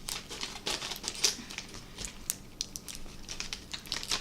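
Snack packaging crinkling and crackling as it is handled, a quick irregular run of small clicks and rustles.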